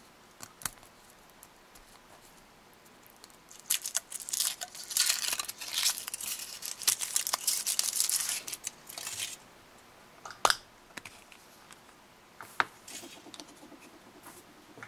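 Foil wrapper of a Kinder Surprise chocolate egg crinkling as it is peeled off, starting a few seconds in, then a couple of sharp snaps as the chocolate shell is split open, and light handling of the plastic toy capsule.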